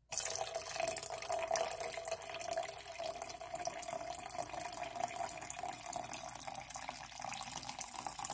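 A stream of dark liquid pouring into a stainless steel tumbler, splashing steadily as the tumbler fills, with a ringing note under the splash that fades over the last couple of seconds.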